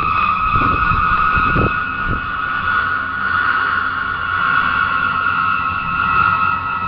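A steady, high whine in two held pitches over a noisy background, with a few low thumps in the first two seconds. The recordist presents it as the sound of an unidentified flying object hovering overhead.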